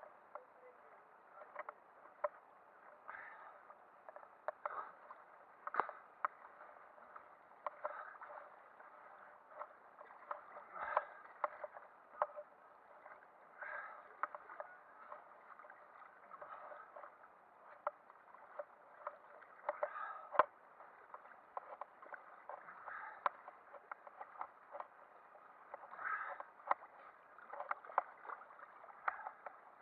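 Lake water lapping and sloshing against an action camera's waterproof housing at the surface. It sounds muffled, with frequent small knocks and clicks.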